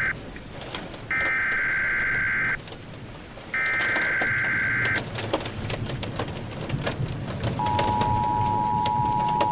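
Emergency Alert System SAME header: the tail of one burst of warbling two-pitch data tones, then two more bursts about a second apart. About seven and a half seconds in, the steady two-tone EAS attention signal begins and holds. Steady rain with low thunder rumble runs underneath.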